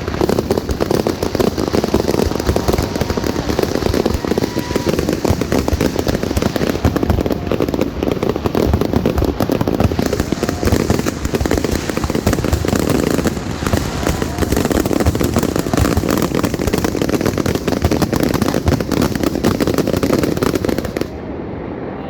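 Fireworks display: a dense, continuous barrage of bangs and crackling that stops abruptly near the end.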